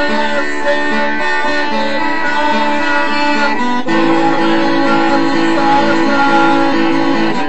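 Guitar chords strummed and left ringing, moving to a new chord about four seconds in.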